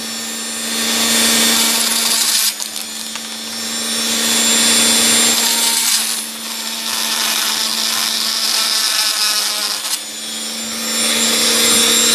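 Small high-speed rotary tool running steadily and grinding into a plastic camera housing around the lens opening. The grinding grows louder and eases off several times as the bit bears on the plastic and lifts away.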